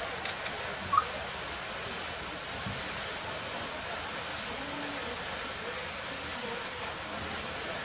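Steady rush of water running into a pool, with two sharp clicks just after the start and a short high squeak about a second in.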